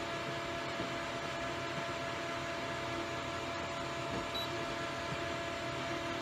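Steady rushing hiss with a faint steady hum, which the uploader says sounds like running water but comes from the camera's recording, not from water. About four seconds in, the printer's touchscreen gives a single short high beep as a network entry is tapped.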